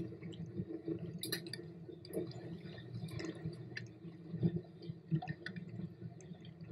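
Sound recorded aboard a small boat at sea: a steady low hum with water sloshing and many scattered small clicks and knocks.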